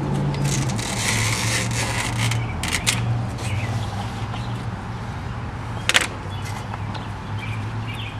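A steady low hum, like an idling engine, runs under light scraping and a few sharp clicks from handling the window screen and its frame, with the loudest click about six seconds in.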